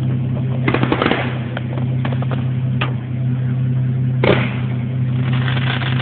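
Multi-shot consumer firework cake firing: a quick cluster of sharp pops about a second in, a single crack near the middle and a stronger burst past four seconds, over a steady low hum.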